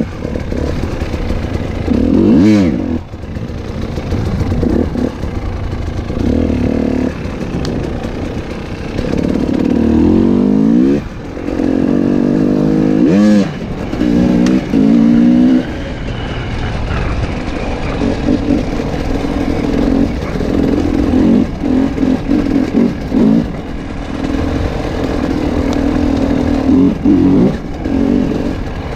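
KTM 300 XC-W two-stroke single-cylinder enduro engine under way on the trail, revving up and falling back again and again as the throttle is worked, its pitch climbing in sharp surges several times.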